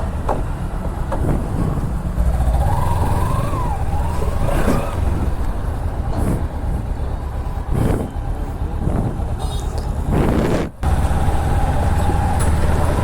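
Road vehicle engine and traffic rumbling steadily, with a wavering high tone a few seconds in and a steadier tone near the end. The sound drops out briefly about two-thirds of the way through.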